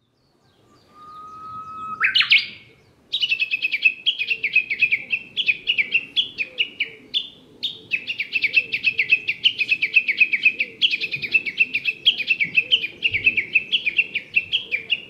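Japanese bush warbler (uguisu) singing: a held whistle, a sharp upswept note, then a long, fast run of repeated notes, several a second, going on with only brief breaks.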